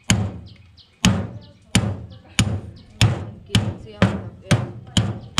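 Repeated sharp strikes on the steel mould of a concrete hume pipe, about nine blows, each ringing briefly. They come faster as they go, from about one a second to about two a second.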